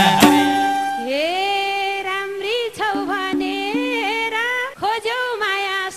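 Nepali dohori folk song: the full band with drums drops away in the first second, then a woman sings a long, ornamented phrase, her voice sliding up into it, over light held accompaniment.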